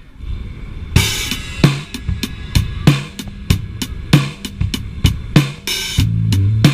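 Live rock band jamming: a drum kit comes in about a second in with a cymbal crash and plays a steady beat of bass drum, snare and hi-hat over a quiet guitar. Near the end a loud bass line joins. Heard through an action camera's built-in microphone.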